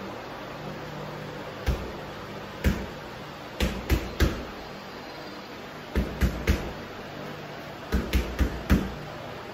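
Gloved punches thudding into a hanging heavy punching bag, about a dozen sharp hits in small combinations: two single blows, then quick runs of three, three and four. A steady low hum sits underneath.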